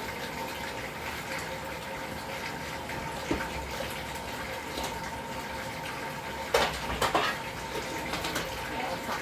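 Small countertop dishwasher running, water spraying steadily inside it with a faint motor hum. Two sharp knocks come about two-thirds of the way through.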